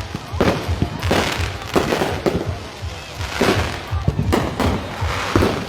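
Aerial fireworks going off in an irregular string of sharp bangs, about two a second, with music playing underneath.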